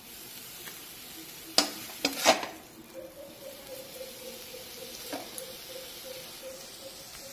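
Flat metal spatula scraping and knocking in a metal kadhai as the cooked, dried-out milk-and-sugar sweet mixture is gathered up, over a low sizzle from the hot pan. Three sharp knocks stand out, about a second and a half, two seconds and five seconds in, and a faint steady hum comes in about three seconds in.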